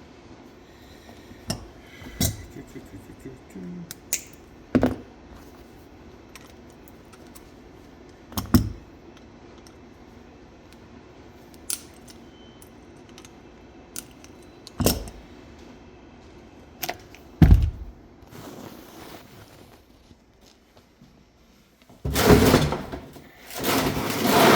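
Metal parts and tools being handled on a workbench during disassembly of a safety pressure valve: about seven separate sharp knocks and clinks, then a louder, longer scraping and rattling stretch in two swells near the end.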